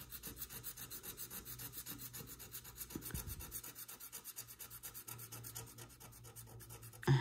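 A scratch-off lottery ticket being scratched in rapid, even back-and-forth strokes, the scratcher rasping across the coated surface several times a second.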